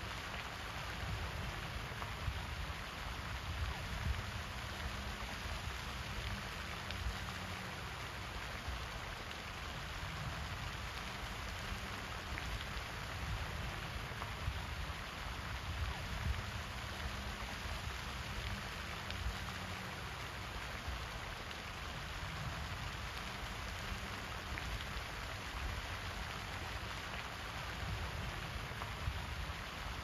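Pond fountain's jet of water falling back onto the pond surface: a steady, rain-like splashing with an uneven low rumble underneath.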